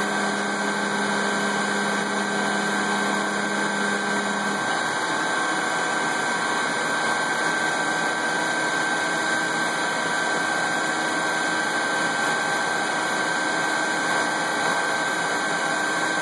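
CNC-converted Grizzly G4002 metal lathe running a turning pass on hex bar stock under flood coolant: steady spindle and cutting noise with coolant spray and a steady high whine. A lower hum in the machine drops out about four and a half seconds in.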